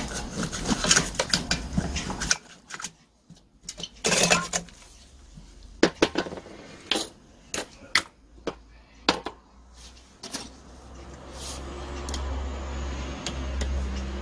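Hand-handling noise from a butane-gas brush cutter being worked on: a rustle in the first two seconds, then a series of separate sharp clicks and knocks of hard plastic and metal parts as the machine is gripped, turned and opened up with a screwdriver.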